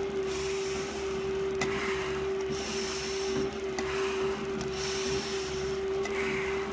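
Heavy, regular breathing through a firefighter's full face mask during a stair climb, a breath about once a second with a brief high hiss from the mask about every other breath. A steady machine hum runs underneath.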